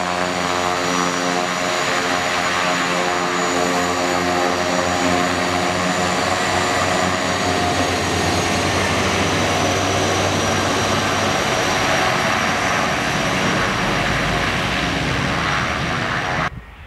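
The twin Pratt & Whitney PT6A turboprops of a Beech C90B King Air running at taxi power: a steady propeller buzz over a thin, high turbine whine as the aircraft moves off. The sound cuts off suddenly near the end.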